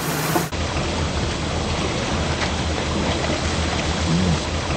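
Steady rushing noise over a low, even drone from the boat's engine, after an abrupt cut about half a second in.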